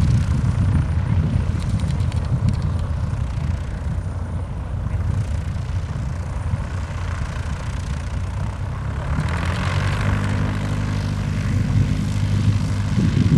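Light single-engine propeller biplane coming in to land and rolling along the grass. Its engine hum becomes clearer and steadier about nine seconds in.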